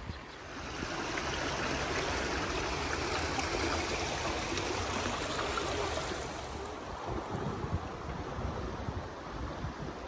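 Shallow river water rushing and gurgling over rocks. It swells about half a second in and eases off again after about six seconds, with wind rumbling on the microphone.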